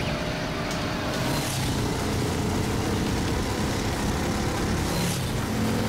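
Cartoon vehicle sound effects: engines of heavy robot vehicles running in a steady, dense rumble, with two brief whooshes, about a second in and near the end.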